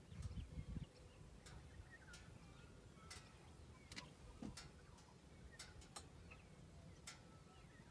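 Near silence: faint outdoor ambience with scattered soft clicks at irregular spacing and a brief low rumble in the first second.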